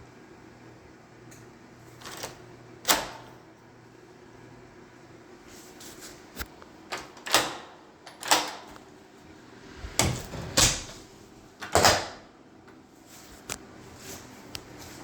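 A series of about a dozen irregular knocks and clunks, like things being handled and set down, with the loudest clustered near the middle and a faint steady hum beneath.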